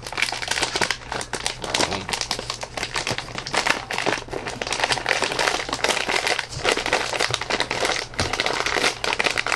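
Plastic Goldfish cracker bag crinkling and crackling continuously as a hand works its top open and pushes inside.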